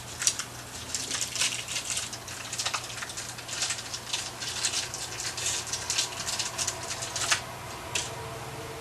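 Dirt-bike fork parts being handled and fitted by hand: a quick, irregular run of small clicks and rattles, with a sharp click near the start and another about seven seconds in.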